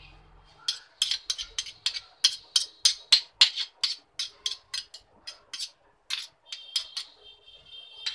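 A metal spoon clinking rapidly against a steel pot while stirring curdled milk (fresh chhena in whey), about five sharp strikes a second. The strikes stop about a second before the end, leaving a brief ringing tone.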